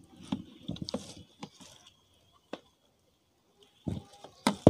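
Scattered light clicks and knocks from a plastic electric kettle and its base being handled, with a louder cluster of knocks near the end.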